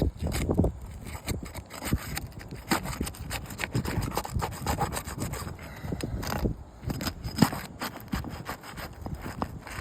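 Irregular rough scraping and rubbing with scattered light knocks, from movement over asphalt roof shingles.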